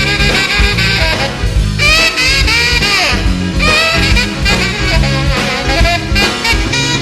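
Instrumental break in a 1950s rhythm-and-blues record: a saxophone solo with bending, wavering notes over the band's steady swinging beat.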